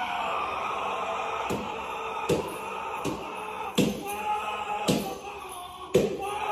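Six dull knocks or bangs, spaced unevenly about once a second, over a steady droning background with a few held tones.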